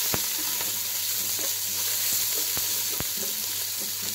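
Browned onions and ginger paste sizzling in hot oil in a non-stick pan, with a spatula stirring and a few sharp taps and scrapes against the pan.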